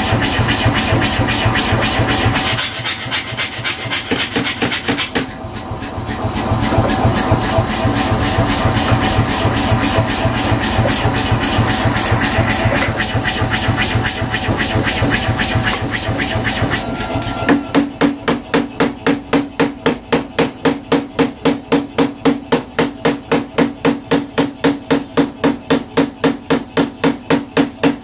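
Mechanical power hammer running with a dense, rapid clatter. About two-thirds of the way in it changes abruptly to clean, even blows at about four a second as it forges a red-hot knife blank for a bone-chopping cleaver.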